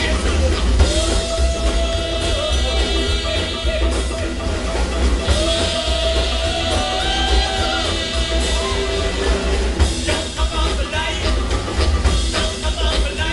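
Live rockabilly band playing loudly and without a break: upright bass, electric guitar, saxophone and drums, with long held notes over the steady groove.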